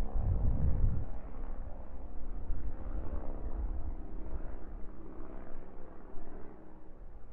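Outdoor background rumble, with wind buffeting the microphone for about the first second and then settling into a steady low rumble.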